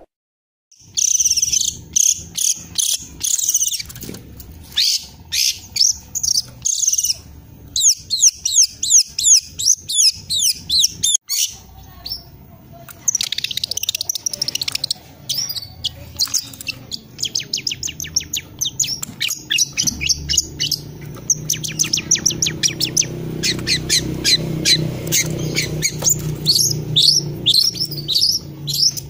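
Young long-tailed shrike singing a rapid, varied run of sharp chirps and fast rattling trills, reproducing the mimicked phrases it has learned from master recordings. A low steady hum sits underneath in the second half.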